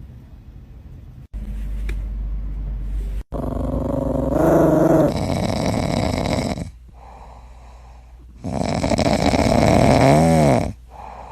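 A dog making loud, rough throaty noises in two long bursts, each a few seconds long, with a wavering pitch in the second.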